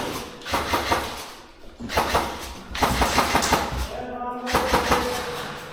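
Bursts of airsoft gunfire: rapid, closely spaced clicks and cracks in several bursts inside a small concrete space. A voice is briefly heard near the end.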